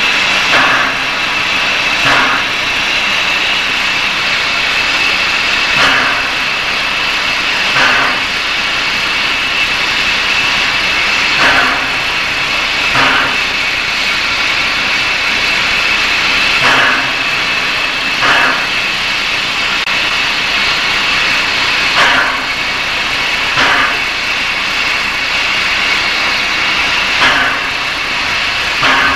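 Standing steam locomotive hissing steadily. A pair of soft strokes comes about every five seconds through the hiss.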